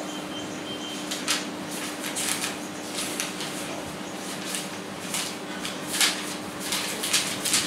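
Paper being handled, as pages of a book or notebook are turned and shifted: a series of short, irregular rustles over a steady low hum.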